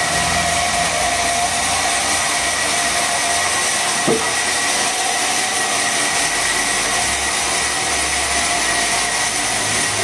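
Sawmill saw machinery running steadily: a constant whine over a dense mechanical noise, with one short sharp sound about four seconds in.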